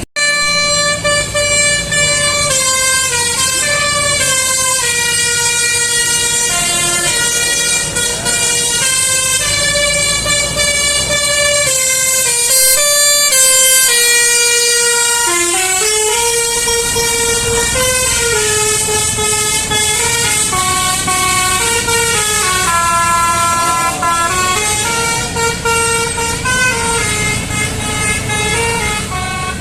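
Bus 'telolet' multi-tone Basuri horn playing a slow melody of held notes stepping up and down, with a few brief slides in pitch.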